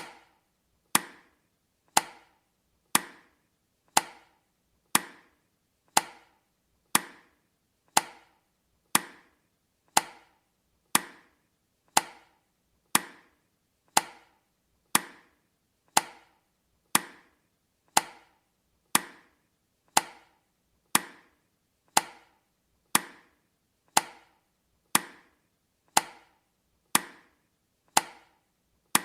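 Countdown timer's tick sound effect: a single sharp click once a second, each dying away quickly.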